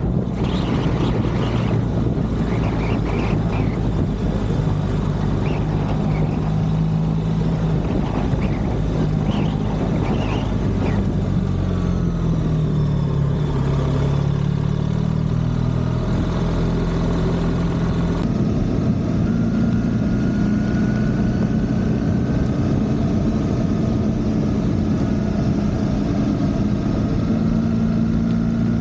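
BMW R1300GS Adventure's boxer-twin engine running under way, with steady wind and road noise. The engine pitch dips and rises around the middle as speed changes.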